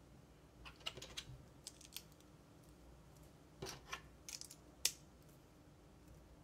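Small plastic LEGO pieces clicking against each other and being snapped together in a few scattered clusters of sharp clicks. The sharpest click comes about three-quarters of the way through.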